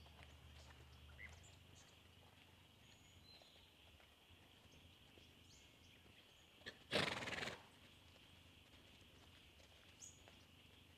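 A Pura Raza Española stallion walking under saddle on sand, his hoof steps faint; about seven seconds in he gives one short, loud snort.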